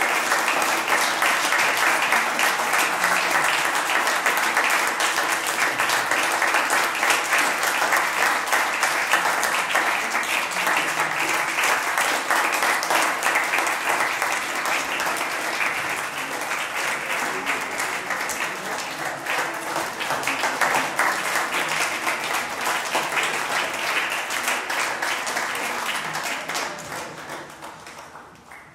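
Audience applauding steadily, with many hands clapping, then fading out near the end.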